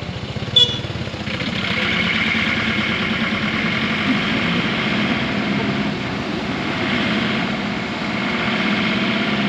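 Van's engine and road noise heard from inside the cabin, steady once it grows louder a little over a second in. A brief sharp click about half a second in.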